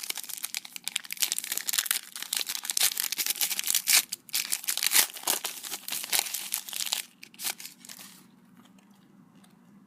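A trading-card pack wrapper being torn open and crinkled: dense crackling for about seven seconds, then a few soft rustles that die away about eight seconds in.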